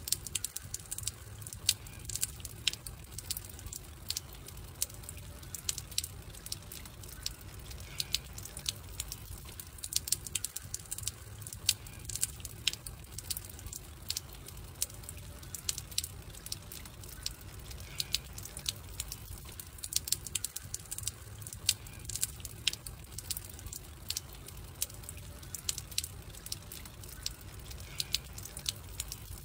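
Wood campfire crackling: irregular sharp pops and snaps over a low, steady rumble of flames.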